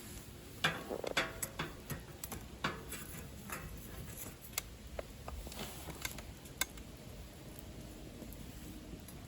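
Wood fire crackling in a secondary-combustion fire-pit stove, with sharp pops and snaps. They come thickest in the first few seconds and thin out after about six seconds.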